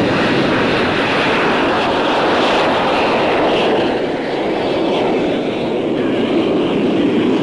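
MiG-21 turbojet engine roaring as the fighter rolls down the runway on takeoff, a loud, steady rushing noise that dips slightly a little past halfway.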